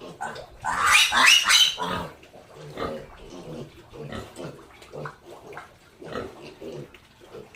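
Domestic pig giving one loud, high-pitched squeal about a second in, then a run of short, repeated grunts.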